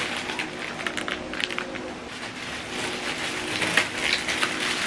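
Plastic courier mailer bag crinkling and rustling in the hands as a parcel is opened, with many sharp crackles.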